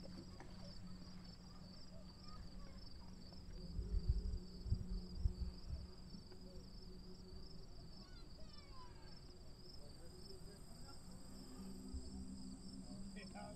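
Crickets chirping in a steady, high, evenly pulsing trill, under a low steady hum. Wind buffets the microphone in a few low thumps about four to five seconds in.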